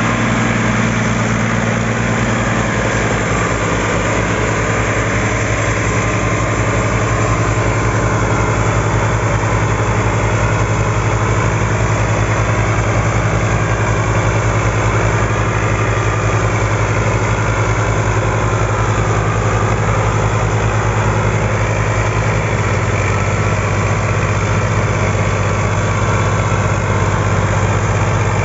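Diesel tractor engines, a Fiat 480's among them, running steadily with a low throb as they work under load hauling a heavy sugarcane trolley; the engine note shifts slightly about 23 seconds in.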